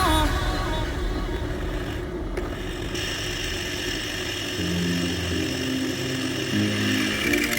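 A power tool's electric motor running with a steady whir. Soft background music with a low bass line comes in about halfway.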